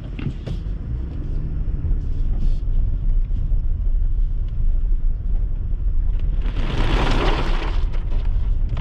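Steady low road and engine rumble of a car heard from inside the cabin while driving, with a louder rushing whoosh about six and a half seconds in that lasts over a second.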